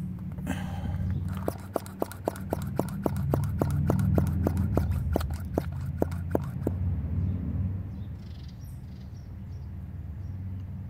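Hand-held vacuum brake bleeder pump being squeezed over and over, a sharp click with each stroke at about four a second for some five seconds. It is drawing a vacuum on the brake caliper's bleeder valve to pull fluid through. A steady low rumble runs underneath.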